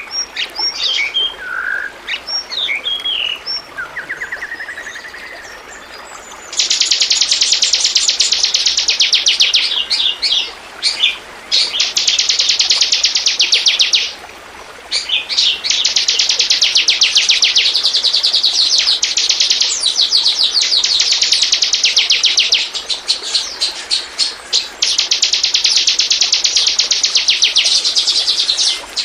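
Ciblek (bar-winged prinia) singing: a few scattered chirps, then from about six seconds in a loud, rapid, high-pitched chattering trill, broken by short pauses.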